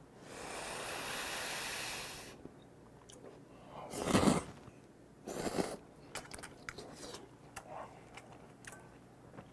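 A person blows on a lift of hot ramyeon noodles for about two seconds, then slurps them in two bursts, the first the loudest, followed by wet chewing clicks.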